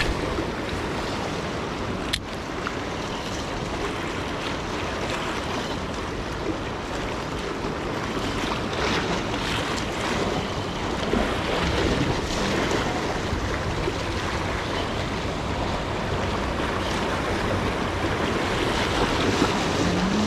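Ocean surf washing onto the beach, with wind on the microphone. A single sharp click about two seconds in, and a low steady hum begins near the end.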